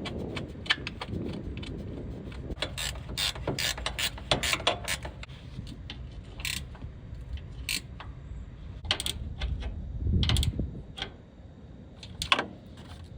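Hand ratchet clicking in short runs as bolts are tightened, with scattered clicks and knocks of parts being handled.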